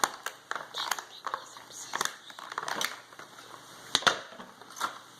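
Plastic toy packaging crackling and snapping in irregular bursts as small blind packs are torn open by hand.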